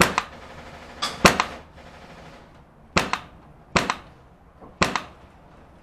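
Airsoft guns firing single shots, several sharp pops spread across the few seconds, some of them in quick pairs.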